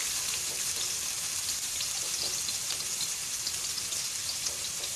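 Finely cut onion sizzling in hot oil in a wok, being lightly fried: a steady hiss with fine crackles.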